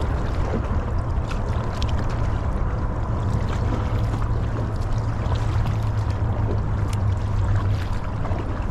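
Steady rush of creek water around a drifting kayak, over a low rumble, with faint light clicks now and then.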